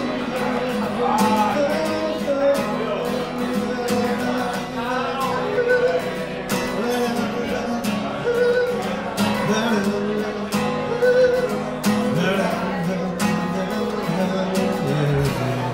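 A man singing while strumming an amplified acoustic-electric guitar, a solo live song. Near the end the strumming stops and a last chord is left ringing.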